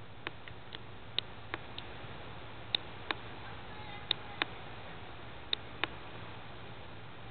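Sharp clicks, mostly in pairs about a third of a second apart, the pairs coming every second and a half or so, over a steady hiss and a low hum.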